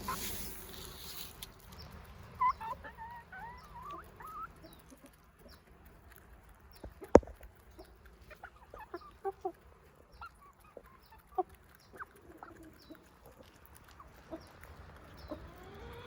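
Young chickens, about three months old, clucking and giving short scattered calls. One sharp click about seven seconds in.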